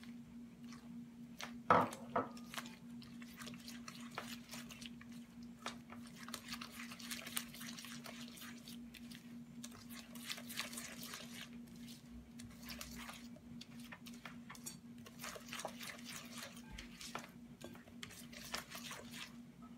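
Silicone spatula stirring and scraping beaten egg into creamed butter and sugar in a glass mixing bowl, in many short strokes. About two seconds in, a sharp clink of the small glass bowl against the mixing bowl. A steady low hum runs underneath.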